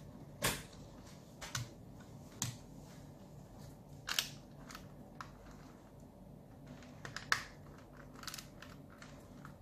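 Parts of a Transformers-style robot figure clicking and knocking as they are handled and pressed into place during transformation: about a dozen irregular sharp clicks, the loudest about half a second in and about seven seconds in.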